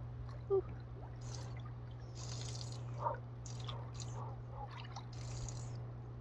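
Bathwater sloshing and dripping as a person shifts in a filled outdoor tub, in scattered small splashes over a steady low hum. A short, sharper sound about half a second in is the loudest moment.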